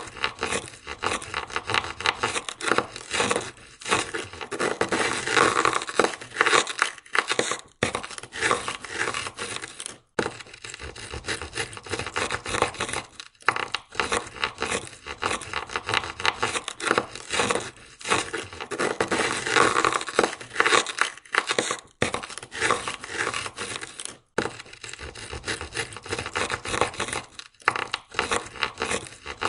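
Ice scraper scraping ice off a car window in rapid, rasping strokes, broken by a brief pause every few seconds.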